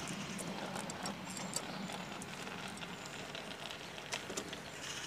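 Outdoor ambience: a steady low hum of distant traffic and surroundings, with light irregular ticks throughout.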